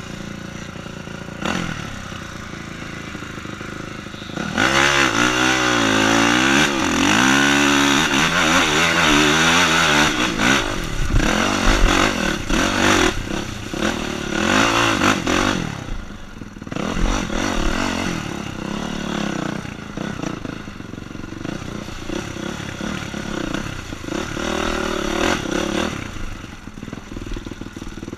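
Honda CRF dirt bike engine revving up and down as it is ridden, with clatter and scraping from the bike over rough ground. The revving is loudest from about five to ten seconds in, then settles lower.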